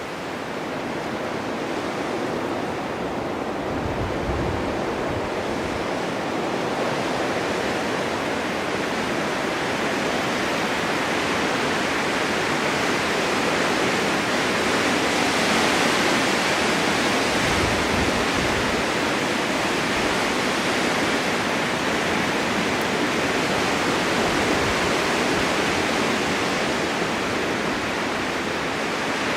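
Blizzard wind rushing steadily with blowing snow, swelling gradually to a peak in the middle, with a couple of low gusty rumbles.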